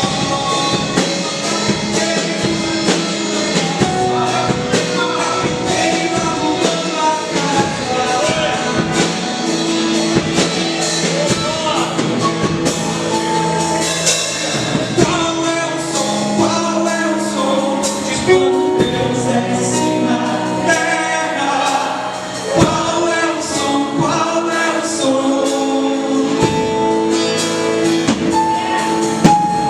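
Contemporary Christian worship music: a male voice singing over a full band with a steady beat.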